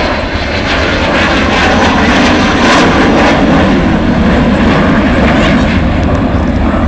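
Avro Vulcan bomber's four Rolls-Royce Olympus turbojet engines, loud jet noise as the aircraft flies its display pass. It grows louder over the first couple of seconds, then holds.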